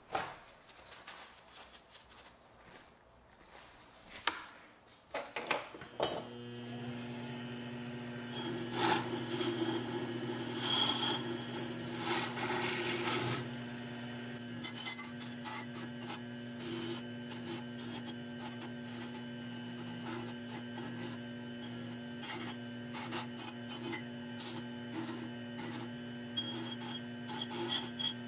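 A WEN benchtop woodworking lathe's motor hums steadily from about six seconds in, driving a reddish abrasive or polishing wheel. A metal toy-truck part is held against the spinning wheel, rasping loudly for several seconds and then in repeated short passes as the part is worked.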